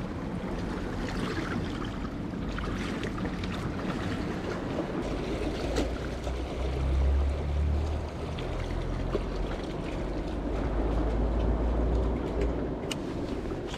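Sea water lapping and sloshing among concrete tetrapods, with wind rumbling on the microphone through the middle stretch.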